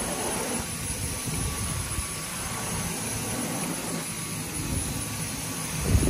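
Dyson cordless stick vacuum running steadily with a high motor whine as its motorised floor head is pushed back and forth over a doormat. There is a low thump near the end.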